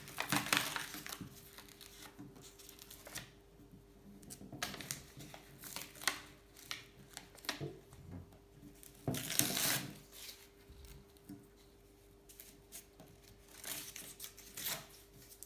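Painter's masking tape being peeled off a freshly painted bike frame and paper masking crumpled, in a series of irregular rasping, crinkling bursts, the loudest about a second in and around nine to ten seconds in.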